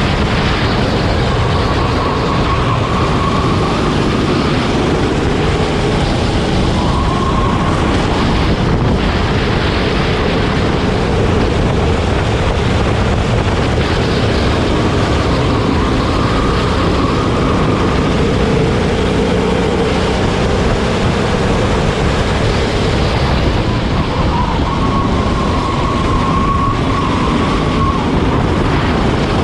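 Racing kart engine running at race pace, its note rising and falling as the throttle opens and closes, over a steady rush of wind and rolling noise.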